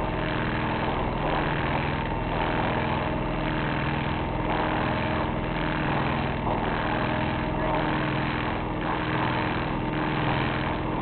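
Sailboat's inboard engine running steadily under way, a constant drone with a regular pulse about once a second.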